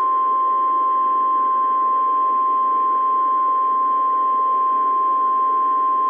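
NOAA Weather Radio 1050 Hz warning alarm tone: a single steady high tone held unbroken over radio static. The tone signals that a warning message is about to be broadcast.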